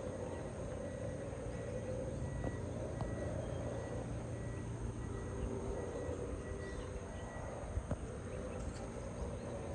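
Steady outdoor ambience: a low, even hum with an insect's high, even trill over it that stops near the end, and a few faint clicks.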